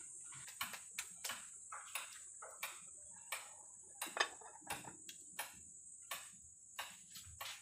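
Crickets chirping steadily with irregular sharp clicks, one or two a second, and a louder metallic clank about four seconds in as the aluminium lid is set on the cooking pot.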